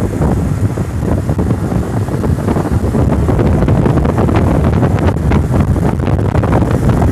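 Wind buffeting the microphone on a moving motorcycle: a loud, continuous rumble, with the motorcycle running beneath it.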